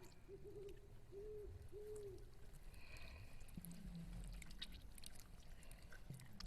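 Faint owl hooting: a short run of soft hoots in the first two seconds, then quiet night ambience with a few faint low sounds and small clicks.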